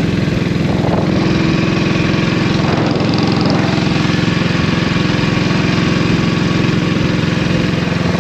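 1932 Norton 16H's 500cc side-valve single-cylinder engine running steadily as the motorcycle is ridden along at a steady pace.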